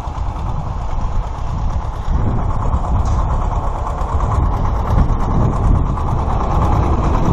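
Władimirec T-25 tractor's two-cylinder air-cooled diesel running as it drives up towing a star-wheel hay rake. The engine grows louder from about two seconds in.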